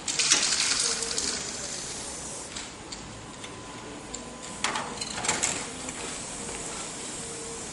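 Aerosol spray-paint can hissing in a burst about a second and a half long, then two or three short bursts around the middle.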